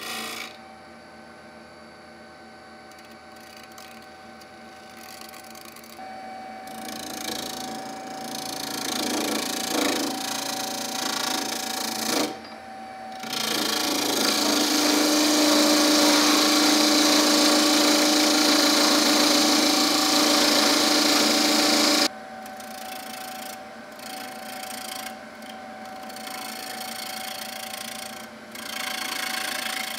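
Wood lathe running with a steady motor hum while a hand-held turning tool cuts a spinning beech cylinder. The cutting noise comes and goes, with its loudest and longest stretch starting about a third of the way in and stopping abruptly about two-thirds through.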